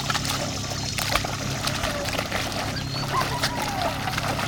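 Dogs swimming in a lake: water splashing and sloshing in many quick small splashes, over a steady low hum.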